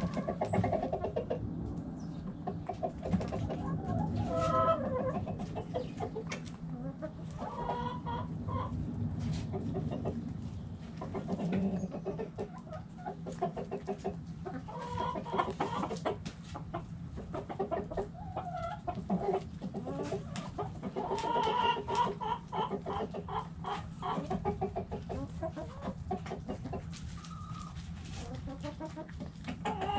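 A flock of backyard hens clucking in a chicken coop, with many short overlapping calls throughout.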